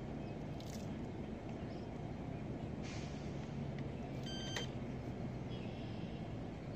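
Short electronic beep from a carp-fishing bite alarm about four seconds in, as a rod is laid on it. A steady low rumble runs underneath.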